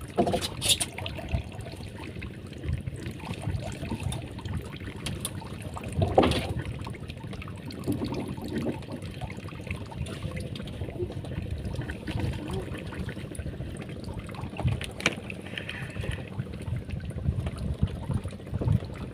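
Sea water lapping and trickling against the side of a small outrigger boat over a steady low rumble, with a sharp knock about six seconds in.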